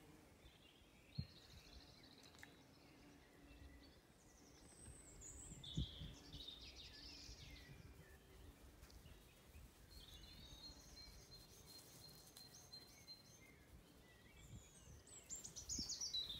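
Faint birdsong, scattered chirps and a longer trill, over quiet outdoor background noise, with two brief knocks, one about a second in and one near six seconds.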